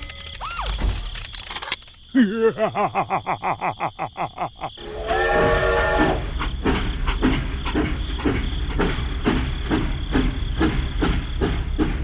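Steam train: rapid puffing, then a whistle blast about five seconds in, followed by a steady chugging beat with hissing steam.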